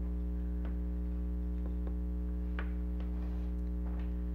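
A steady low electrical hum with about six faint, scattered clicks and taps from small tools handled on a plush toy's wiring.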